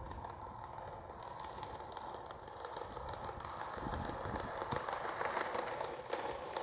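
Skateboard wheels rolling on pavement, growing louder from about four seconds in as the board comes closer, with a few faint clicks.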